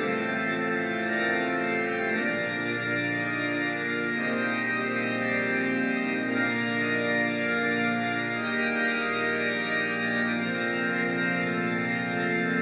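Organ music: slow processional playing in held, sustained chords that change every second or two.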